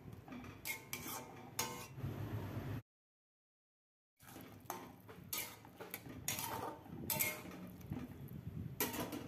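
Metal spatula scraping and clinking against a metal kadai while stirring a watery baby corn and potato curry, in irregular strokes. The sound stops dead for over a second about three seconds in, then the stirring resumes.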